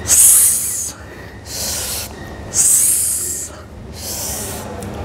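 A man breathing hard through the mouth during kneeling rope cable crunches: two loud exhalations, about two and a half seconds apart, as he crunches down and squeezes his abs, with softer inhalations between as he comes back up.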